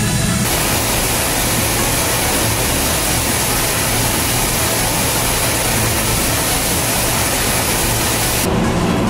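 Mazak Variaxis i-800 NEO machining center milling 1045 steel with a 16 mm endmill at about 3,300 rpm, a steady loud cutting noise with a high hiss as chips fly. It starts about half a second in and stops near the end.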